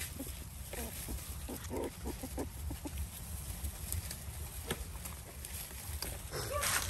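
Hungry dogs eating: a quick run of short eating sounds over the first two and a half seconds, a few more scattered after, and a longer, louder sound near the end.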